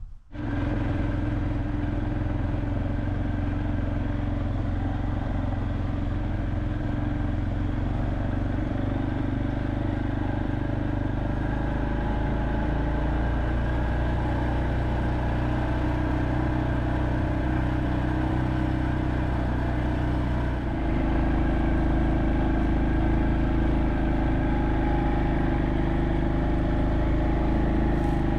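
ATV engine running steadily under load while towing a loaded trailer of firewood; it gets a little louder about three-quarters of the way through.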